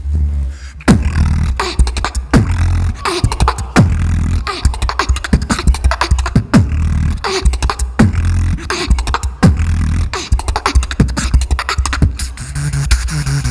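Solo beatboxing into a handheld microphone through the PA: hard kick-drum hits and held deep sub-bass, with sharp snare-like clicks and hissing hi-hats in a steady rhythm. Near the end it turns to a pulsing pitched bass line.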